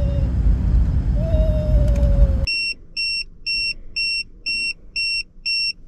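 Toyota LandCruiser's road noise on a gravel road, a steady low rumble. About two and a half seconds in it cuts off suddenly, and a tyre pressure monitor alarm takes over: high-pitched beeps repeating about twice a second, warning that a tyre is going flat.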